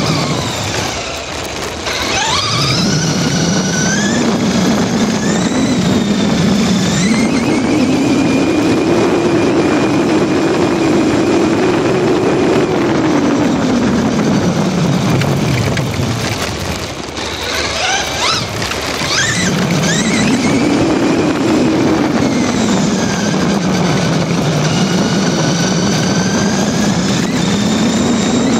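Brushless electric motor and geartrain of a Traxxas Slash RC truck whining as it drives, the pitch rising and falling in long swells with speed. A high-pitched whine sweeps up sharply twice, about two seconds in and again past the middle, as the truck accelerates hard, over a steady rushing noise.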